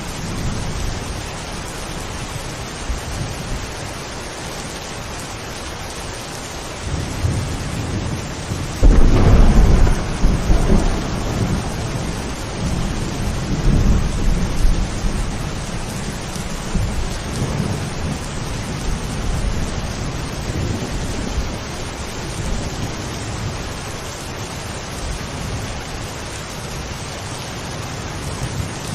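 Steady rain with thunder: a low rumble builds about seven seconds in, breaks loudest about two seconds later, and rolls on for several seconds before fading back under the rain.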